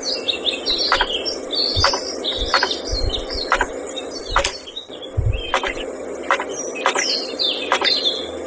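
A miniature motor-driven pestle pounding into a small mortar, knocking steadily about one and a half to two times a second over a steady motor hum. Birds chirp in the background.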